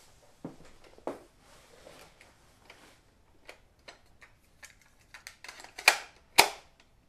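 Clicks and plastic rattles from a portable cassette boombox as a tape is handled and put into its cassette deck, ending in two loud sharp clacks close together near the end.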